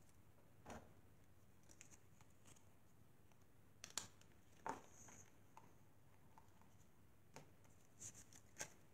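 Near silence, with a few faint clicks and taps from hands handling small craft supplies on the desk.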